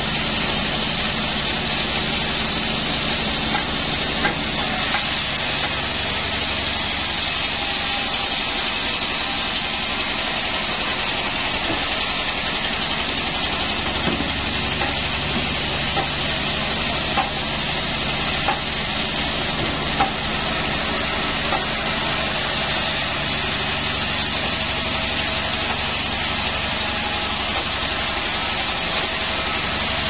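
Sawmill bandsaw, a Pandan 36, running steadily as it saws a wadang log into beams. A few short sharp knocks sound here and there.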